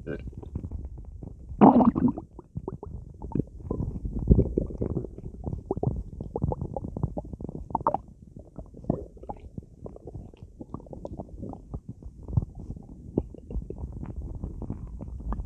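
Human stomach gurgling and rumbling while bloated with soda: a dense run of short bubbly pops and gurgles from the fizzy drink, with a loud gurgle about two seconds in and another about four seconds in.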